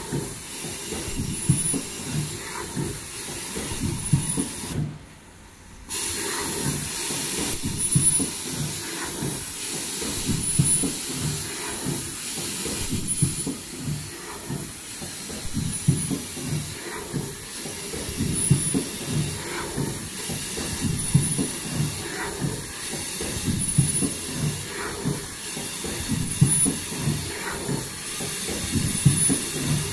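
Richpeace automatic foldable KN95 mask production line running: continuous rhythmic mechanical clatter with a hiss, and short high tones recurring every one and a half to two seconds with the machine's cycle. The sound drops out for about a second around five seconds in.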